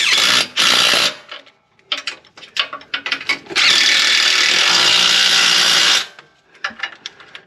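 Power tool driving a sway bar drop bracket bolt: a few short trigger bursts and quick clicks, then one long steady run of about two and a half seconds as the bolt is run in.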